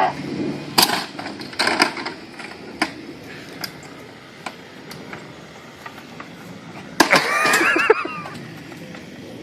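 A string of sharp cracks and knocks, as of something hard being struck, then about seven seconds in a loud, wavering, pitched sound lasting about a second.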